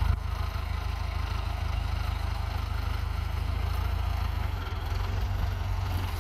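Case International 845 XL tractor's diesel engine idling steadily, a low even rumble.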